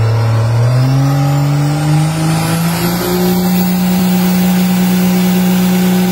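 Drag car's engine revving up over the first three seconds, then held at steady high revs on the start line before launch.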